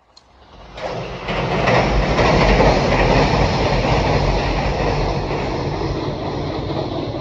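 A train passing with a loud, heavy rumble and rattle that builds up over the first second, then holds and slowly eases off.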